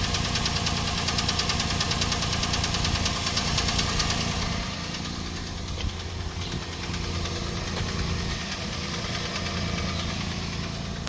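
Toyota Land Cruiser Prado 120 engine idling cold with a rapid, steady knock (стук) that shows up on a cold engine. The knock is a little fainter from about four and a half seconds in.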